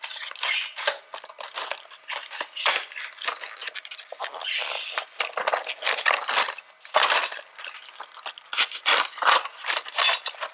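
A lock kit's packet being cut open with a knife and torn apart: irregular crinkling, crunching and scraping.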